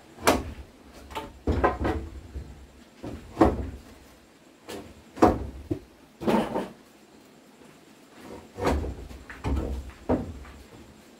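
About a dozen knocks and thumps at irregular intervals, like wood being struck or set down during hand building work.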